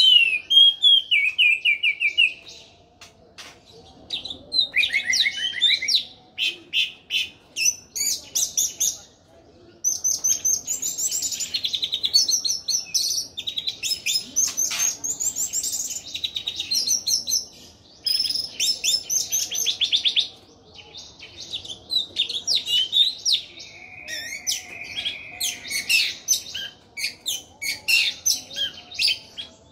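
Orange-headed thrush singing in full voice: a long, varied song of fast trills and whistled phrases, broken by a few short pauses.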